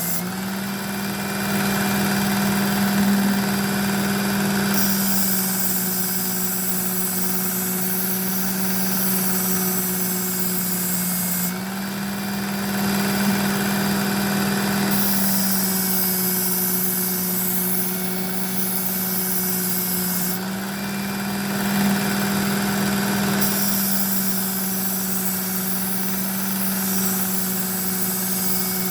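Work Sharp Ken Onion belt knife sharpener running steadily with its motor hum. A knife blade is drawn across the abrasive belt in passes, adding a rasping hiss that comes and goes about every ten seconds.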